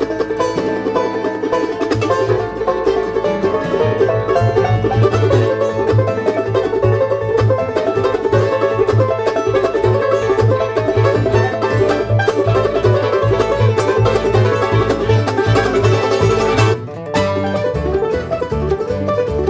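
Background music: fast banjo-led bluegrass-style tune with plucked strings over a steady bass beat, with a brief break about seventeen seconds in.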